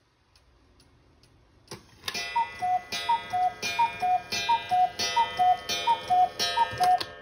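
Hönes cuckoo clock ticking faintly, then about two seconds in its cuckoo striking the hour: a run of about seven two-note calls, high then low, roughly one every 0.7 s, each with a click from the bird's mechanism.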